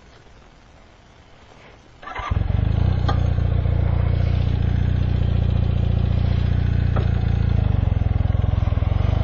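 Honda motorcycle engine starting about two seconds in, then running steadily.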